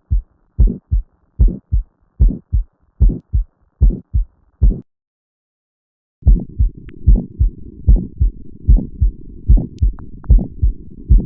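Heart sounds with an early systolic murmur: a repeating lub-dub, a little faster than one beat a second. The sound cuts out for about a second and a half near the middle, and when it comes back a steady low hiss fills the gaps between the beats.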